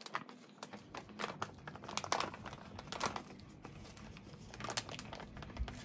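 Small plastic parts bag crinkling and tearing open in gloved hands, in irregular bursts of crackles.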